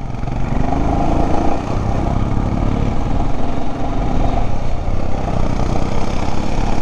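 Royal Enfield Himalayan's 411 cc single-cylinder engine pulling away, its pitch rising in the first second or so and then holding steady.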